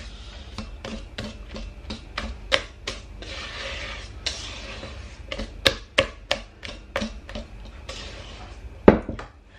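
Wire whisk beating cake batter in a stainless steel bowl: a quick, irregular run of metallic clicks as the wires strike the bowl's sides, over a soft swish through the batter, with one sharper knock near the end.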